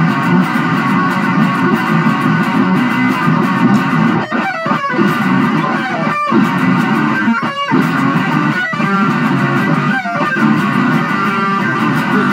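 Instrumental psychedelic rock passage: electric guitar over bass guitar, loud and dense, with several brief stops in the middle.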